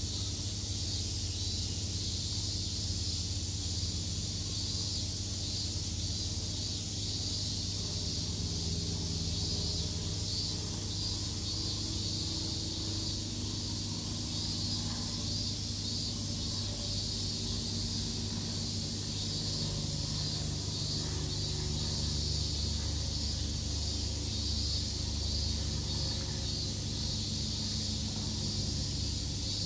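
Steady, high, slightly pulsing drone of a summer cicada chorus, with a low steady hum underneath.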